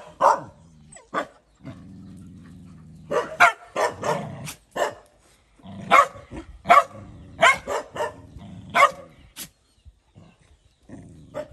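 A small dog growling and barking in short, sharp bursts: one long low growl about two seconds in, then clusters of snapping barks. It is an angry warning at a bigger dog that is crowding it.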